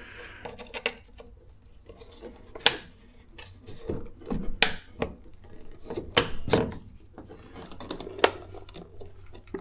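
Irregular sharp plastic clicks and taps, with scraping and rustling between them, as a Nissan 350Z taillight housing and its wiring connectors are worked with a screwdriver and by hand.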